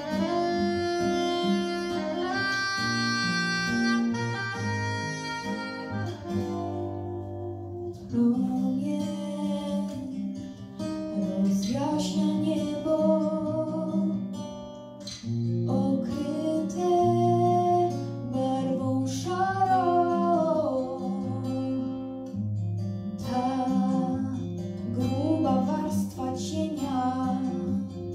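Young woman singing into a handheld microphone over a recorded backing track with guitar. The first eight seconds or so are instrumental; her voice comes in after that.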